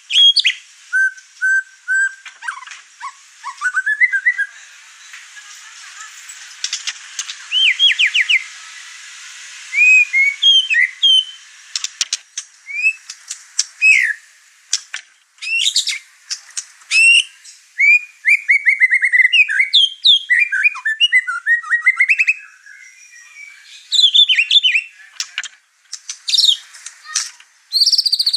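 White-rumped shama (murai batu) singing loudly in an excited outpouring of its repertoire: a quick run of varied phrases made of clear sliding whistles, chirps and fast rattling trills, with short gaps between bursts.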